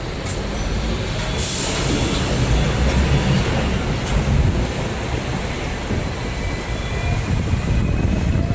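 A vehicle passing, a steady low rumble that grows louder about two seconds in and stays loud, with a short hiss near the start.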